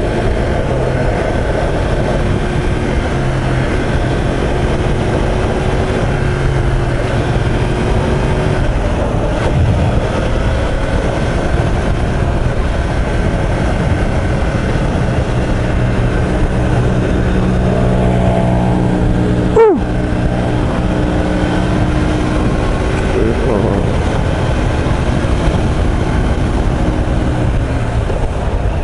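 2016 Yamaha YZF-R1M's crossplane inline-four running steadily at cruising revs under the rider, with wind and road noise. About two-thirds of the way in there is a brief sharp rise and fall in pitch.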